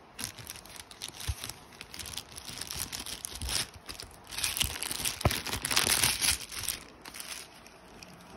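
White plastic courier bag crinkling as it is cut with scissors and pulled open by hand, with a few sharp clicks. It is loudest about two thirds of the way through.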